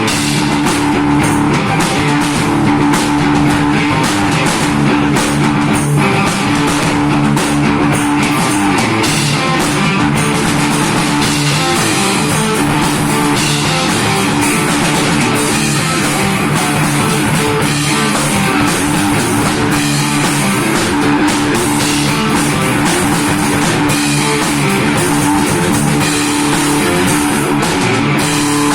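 A children's hard rock band playing: guitar over a drum kit, loud and continuous, with no singing.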